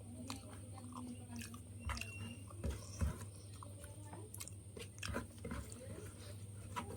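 A person chewing and smacking through a mouthful of rice and fish, with scattered small wet clicks and two louder knocks about three seconds in, over a steady low hum.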